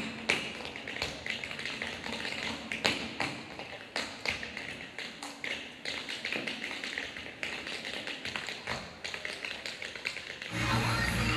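Two tap dancers' tap shoes striking a hard stage floor in a fast, uneven run of clicks and heel strikes, with no music behind them. The backing music comes back in near the end.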